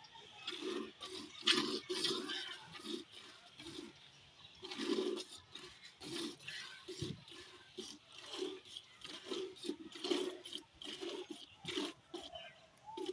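Farm animals making short, repeated low grunting sounds, about two a second, with a rasping edge.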